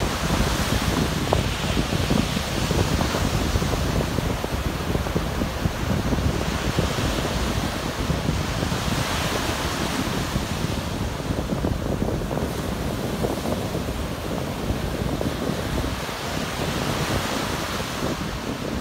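Small surf waves breaking and washing up a sandy beach, the wash swelling and easing every few seconds, with wind rumbling on the microphone.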